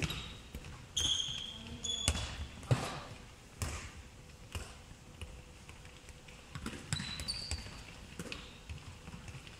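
Handballs being bounced, thrown and caught on a hardwood sports-hall court: a string of irregular thuds, with short high squeaks of sneakers on the wooden floor.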